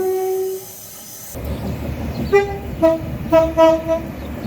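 Train horn: a long blast on its higher note ends about half a second in, then, over a low rumble, four short horn toots come between about two and four seconds in.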